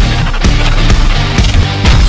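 Loud intro music with a strong beat, the hits landing about twice a second.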